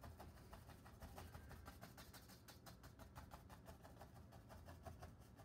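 Faint, rapid tapping of a stiff bristle brush dabbing oil paint onto a stretched canvas, several taps a second, over a faint low hum.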